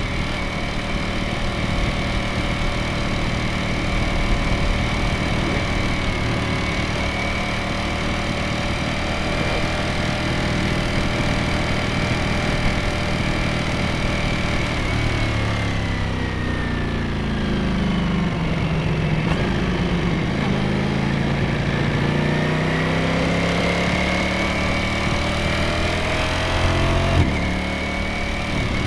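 Ducati Streetfighter V4S 2025's 1103 cc V4 engine and exhaust under way. It holds steady revs for about the first half, then the revs fall, climb again from about two-thirds in, and break briefly near the end.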